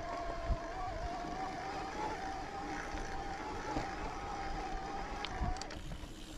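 Mountain bike's rear freehub buzzing steadily while coasting, its pitch drifting a little with speed, cutting out for a moment near the end. Low thuds from the trail and a rushing rumble on the microphone lie beneath it.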